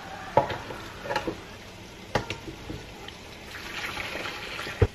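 Boiled tomatoes dropped from a ladle into a plastic blender jar, knocking about three times, then hot cooking liquid poured from the pot into the jar, splashing and filling, in the second half.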